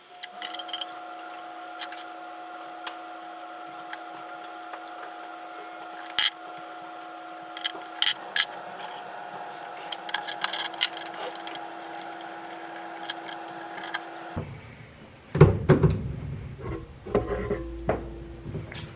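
Sharp metallic clicks and clinks of hand tools and valve parts being handled during an LS cylinder head teardown, over a steady hum that cuts off about 14 seconds in. After that come louder knocks and handling noise.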